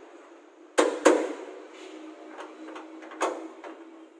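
Sharp metal knocks on the steel cab of a Toyota Kijang KF40 during rust repair: two loud ones close together about a second in and another about three seconds in, with a few lighter taps, over a steady low hum.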